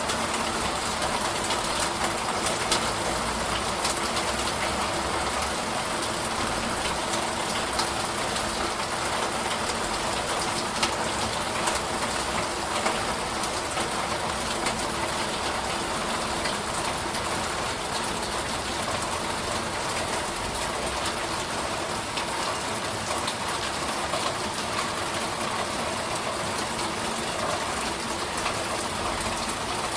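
Steady rain shower falling without a break, with scattered sharper taps of single drops.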